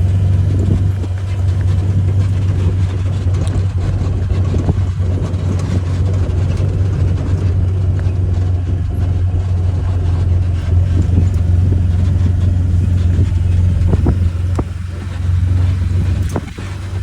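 A motor vehicle running steadily, a constant low drone with road and wind noise over it.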